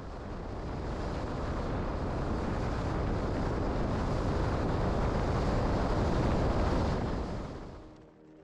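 Rushing wind and water from a fishing boat running fast, a steady roar with no clear engine note that builds over the first few seconds and fades out about a second before the end.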